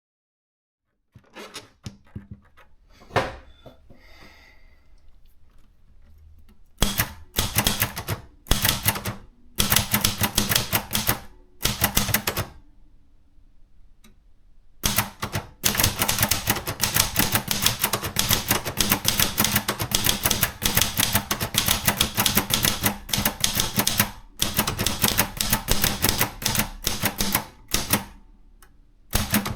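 Contessa 2 de luxe portable typewriter being typed on: a few faint clicks and knocks at first, then fast runs of sharp keystrokes from about seven seconds in. After a short pause near the middle, the typing runs on steadily.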